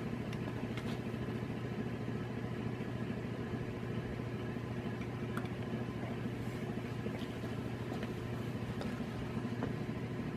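Vintage 1978 Sears friction-drive ceiling fan made by Emerson, running with a steady, very noisy hum and whir, with a few faint ticks.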